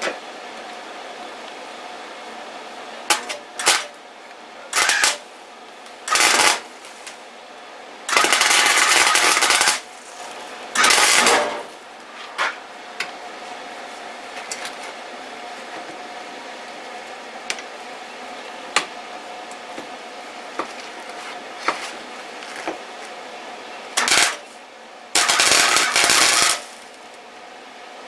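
MIG welder laying tack welds on steel: about eight bursts of crackling arc, most under a second, the longest about a second and a half, over a steady hum.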